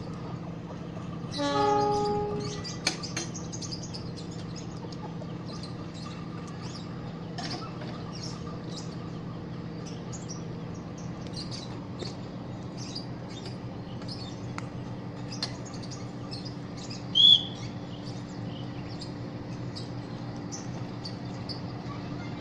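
CC 201 diesel-electric locomotive running steadily, with a short horn blast from the locomotive about a second and a half in. Birds chirp throughout, with one loud short chirp late on.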